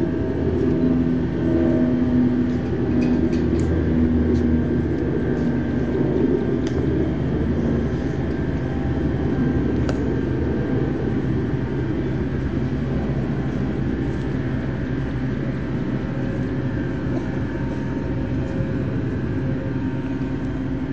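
Steady low rumble of a distant engine, with a few faint humming tones during the first several seconds and a few faint clicks.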